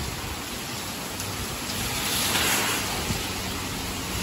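Steady rain falling on a wet street and pavement, growing a little louder about halfway through.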